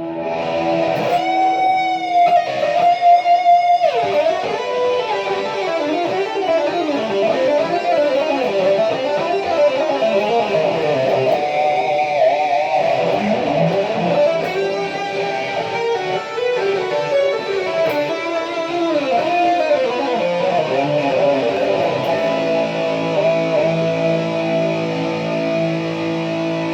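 Electric guitar played through distortion on its DiMarzio Dreamcatcher bridge pickup at full volume: a lead line with bent and wavering sustained notes, settling into steady held notes near the end.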